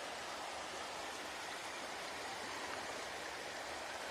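A creek in flood after heavy rain, its fast, turbulent water rushing steadily without a break.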